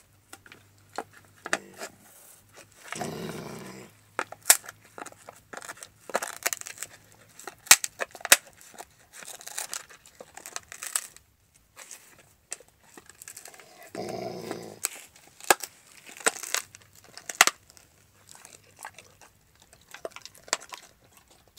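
Alaskan malamute gnawing and chewing a raw meaty bone: irregular sharp clicks and crunches of teeth on bone. Twice there is a short low rumble, about three seconds in and again near fourteen seconds.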